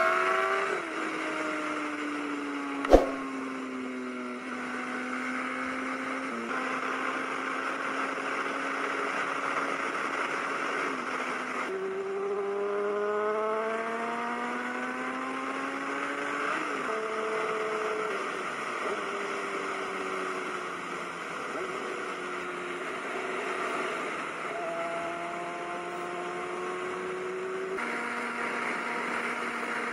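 Sport motorcycle engine heard from the rider's seat, its pitch climbing with the revs and dropping back at each upshift, then sinking as it eases off, over a steady rush of wind. A single sharp knock about three seconds in; the sound changes abruptly about 12 and 28 seconds in.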